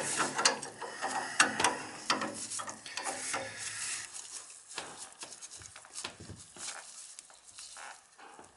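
Pipe wrench and box-end wrench clicking and scraping on the steel fittings under a fuel oil tank as they are worked against a stuck fitting. The clicks come thick and fast for the first few seconds, then thin out and grow fainter.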